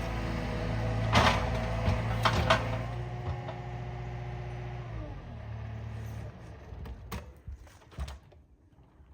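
Cat 299D2 skid steer's diesel engine running steadily, with several sharp cracks in the first few seconds; about six seconds in the engine throttles down and fades, leaving a few scattered clicks.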